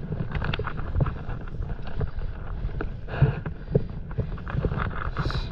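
Wind buffeting an action-camera microphone and small waves lapping against inflatable paddleboards, with scattered light knocks and taps, the sharpest about a second in and twice more a little past the middle.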